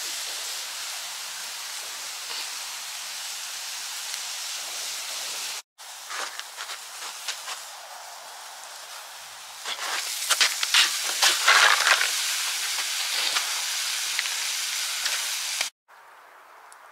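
Skirt steak and vegetables sizzling in cast-iron skillets over a wood fire: a steady hiss with scattered crackles and pops, louder and busier from about ten seconds in. The sound cuts out briefly twice.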